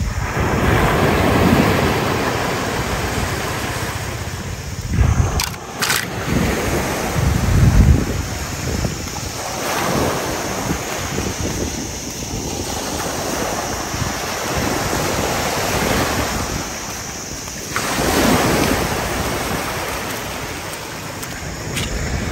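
Small sea waves washing in over a sandy shore, a steady surf hiss, with low rumbles of wind on the microphone that swell loudest about a third of the way in.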